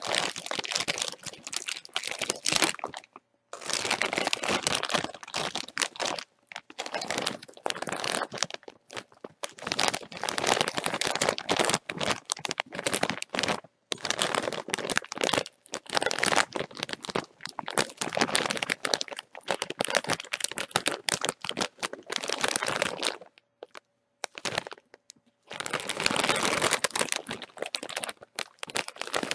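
A plastic-foil chip bag being crinkled and crumpled by hand: dense, irregular crackling in long stretches, with a few short pauses, the longest about two seconds near the end.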